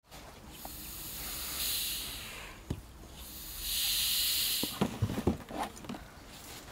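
Hand pump inflating an inflatable paddle board: two long pump strokes, each a hiss of air forced through the hose into the board. A few knocks and clicks follow near the end.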